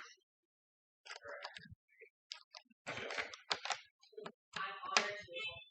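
Small plastic Lego pieces clicking and clattering as they are picked through and handled, in irregular short clicks with a sharper click about five seconds in.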